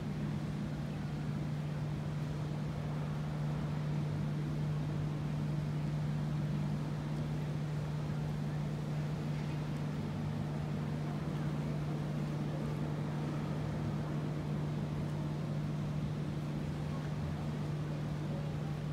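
Steady low drone from the Carnival Conquest cruise ship's engines as it slowly turns, with one constant low hum underneath that does not change.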